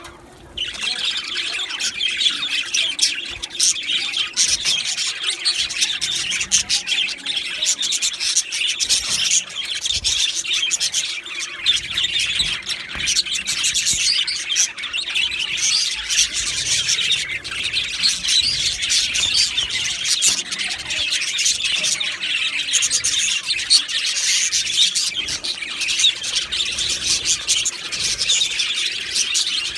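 A flock of budgerigars chattering and chirping at once: a dense, unbroken tangle of high chirps and warbles with occasional squawks.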